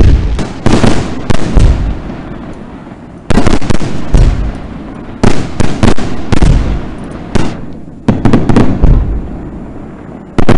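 Aerial fireworks shells exploding overhead in quick clusters of loud bangs, each followed by a rumbling echo. A new group of several bangs comes every second or two.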